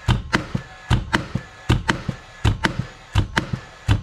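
Older-model Paslode cordless angled finish nailer, a gas-fired nailer, being dry-fired with no nails loaded: about six shots in quick succession, each heard as a sharp double crack.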